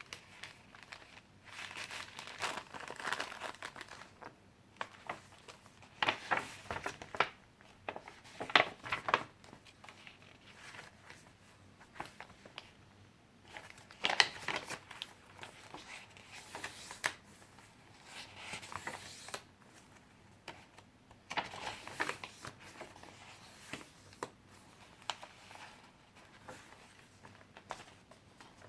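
Pages of a handmade junk journal being turned and handled: irregular paper rustling and crinkling, with louder flurries of crackling every several seconds.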